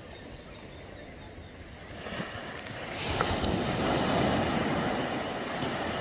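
Ocean surf: a steady wash of waves, with one wave swelling in about two seconds in, loudest around four seconds, then easing.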